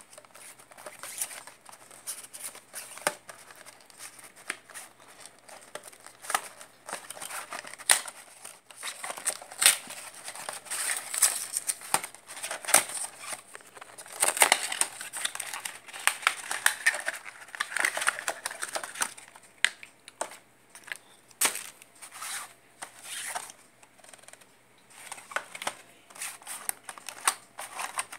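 Clear plastic blister shell and cardboard box of an earphone package being pulled apart and handled, crinkling and crackling with many irregular sharp clicks, busiest in the middle.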